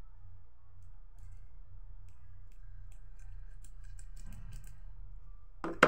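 Scattered light clicks and ticks from a small plastic bottle being handled in the hands, over a low steady hum. A short loud thump sounds near the end.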